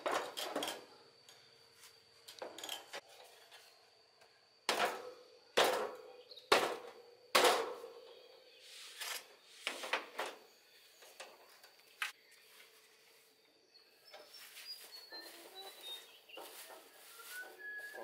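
Knocks and clunks of an air-conditioner outdoor unit's casing panel being handled and fitted back over the unit: about nine sharp knocks in the first twelve seconds, then quieter rattling and handling.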